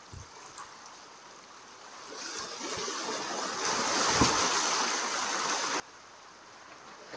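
Seawater washing in over the rocky shoreline: a wave builds from about two seconds in and is loudest near the middle. It cuts off abruptly shortly before the end.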